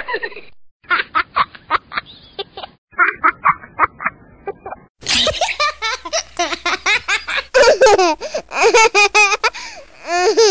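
Babies laughing in quick, repeated bursts. Several different laughing recordings follow one another, and the longest, loudest laughter comes in the second half.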